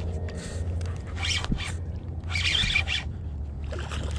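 Spinning reel working against a hooked sheepshead: short raspy bursts of reel and drag about a second and two seconds in. Near the end the fish splashes at the surface beside the boat, over a steady low hum.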